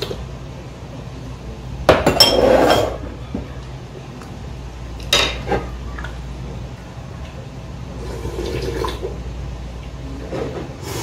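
Tableware handling during a meal: a metal ladle and a large ceramic ramen bowl clinking and knocking, with slurping of broth. The loudest clatter comes about two seconds in, and a sharper clink about five seconds in.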